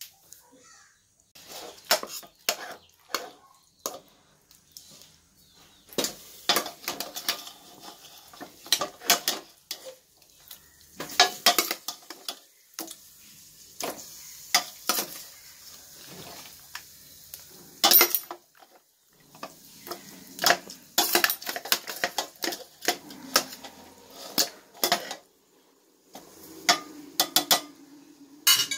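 Steel ladle clanking and scraping against a stainless steel bowl and a pressure cooker as raw chicken pieces are scooped across: irregular metallic clatters, some sharp and loud.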